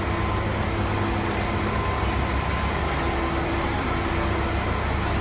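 Diesel engines of parked fire trucks idling: a steady low rumble.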